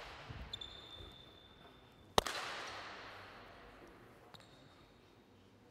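A single sharp smack about two seconds in, echoing and dying away over a second or two, with a few faint soft thuds before it.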